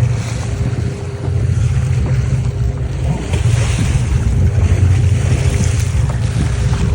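Wind buffeting the microphone over the wash of waves around a fishing boat at sea, with a faint steady hum underneath.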